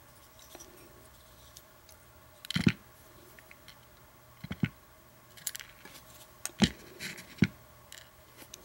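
Scattered small clicks and taps of a disassembled padlock's tiny metal pins, springs and tools being handled and set down, the loudest about two and a half seconds in.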